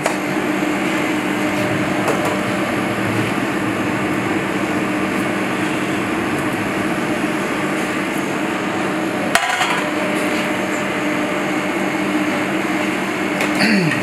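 Steady rushing hum of a commercial kitchen's ventilation, with one sharp click about nine seconds in.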